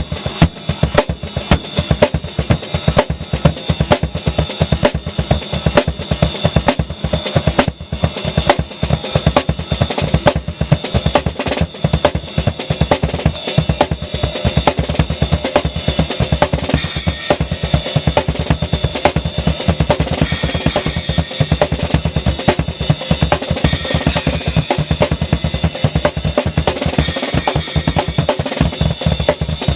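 Acoustic drum kit played as a fast, dense solo: bass drum, snare and cymbals struck continuously, with the cymbals washing brighter and louder from about the middle on.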